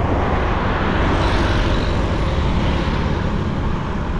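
Steady road noise from riding a Honda Super Cub C125 motorcycle: a loud rush of engine, tyres and wind rumble that begins abruptly.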